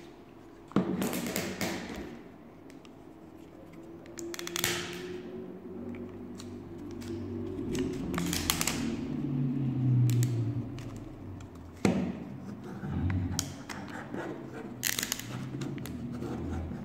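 Laser-cut plywood model-kit parts being handled and pressed together: several sharp clicks and taps of wood on wood, with rubbing and handling noise in between.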